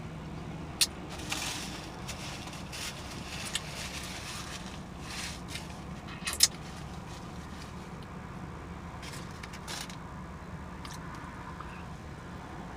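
Close-miked eating: scattered wet smacks, clicks and crackles from chewing a hot dog and fries, over the steady low hum of a car interior.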